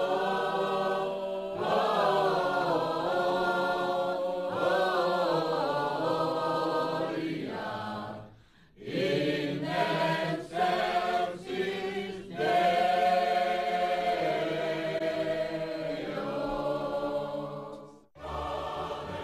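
A group of worshippers singing a hymn together, mixed voices holding long notes. The singing breaks off briefly about eight seconds in, then resumes.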